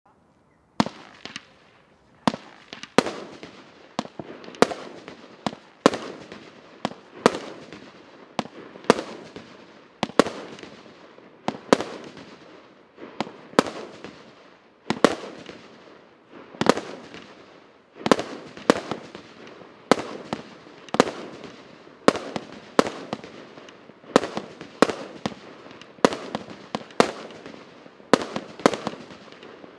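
TC772 firework battery (multi-shot cake) firing, its first shot just under a second in, then a steady run of sharp bangs at roughly one to two a second, each trailing off briefly before the next.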